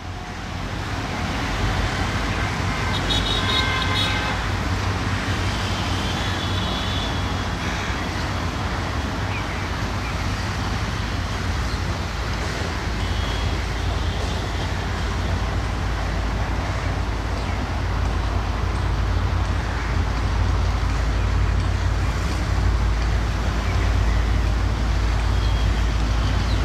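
Diesel locomotive hauling a container freight train on its approach: a steady, deep engine rumble that grows a little louder toward the end.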